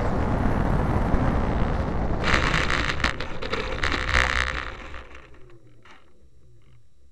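Radio-controlled aerobatic model plane on its landing rollout, heard from aboard the model: rushing wind and rolling rumble, then from about two seconds in a loud rustling, crackling scrape as the wheels and airframe plough through grass. It quietens suddenly about four and a half seconds in, with a faint falling whine as the propeller winds down.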